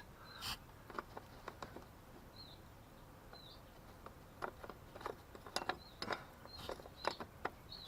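Scattered light clicks and taps of a wrench being worked on a skid steer's battery in a cramped compartment, with a small bird chirping several times in the background.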